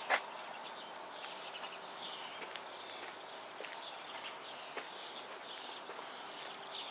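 Steady outdoor background hiss with scattered small bird chirps.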